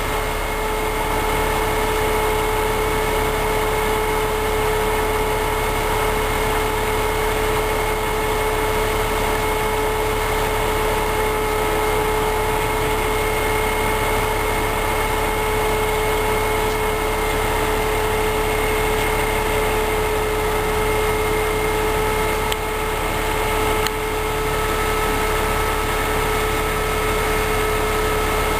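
Truck-mounted crane's engine running steadily during a lift, with a steady whine over the engine noise.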